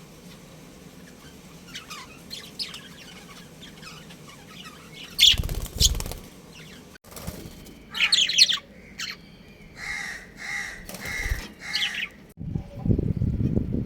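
Budgerigars chirping in short scattered calls, with a burst of wing flapping about five seconds in and a quick run of about five repeated calls near the end. A low rumbling noise comes in at the very end.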